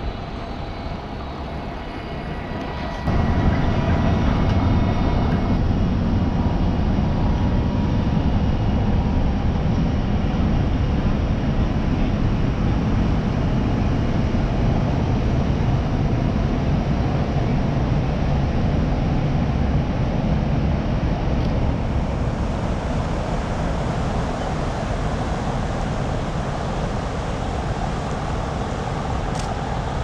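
Low, steady rumble of the Great Lakes freighter Arthur M. Anderson's engine and propeller wash as the ship passes close and heads out of the canal. It gets louder abruptly about three seconds in, then slowly fades as the ship pulls away.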